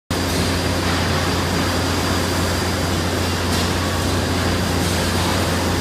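Steady mechanical hum with a low drone and an even hiss, as of industrial machinery running.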